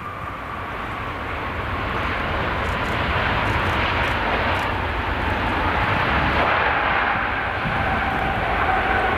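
Airbus A350 jet engines (Rolls-Royce Trent XWB) running as the airliner rolls along the runway: a low rumble under a high engine whine. It grows louder over the first few seconds as the aircraft draws nearer, and the whine dips slightly in pitch.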